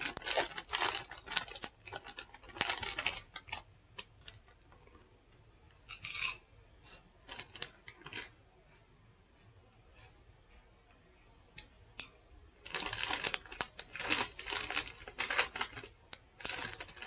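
Plastic potato chip bag crinkling in irregular bursts as it is handled and reached into, with a few sharp clicks in the middle. There is a near-quiet pause before a long run of crinkling near the end.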